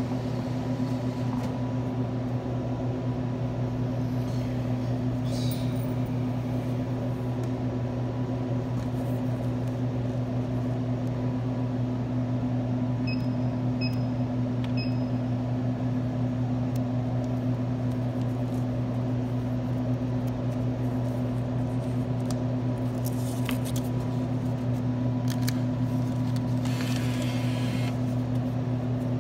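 Steady electrical hum of vending machines. About halfway through, three short electronic beeps sound as a snack machine's keypad buttons are pressed.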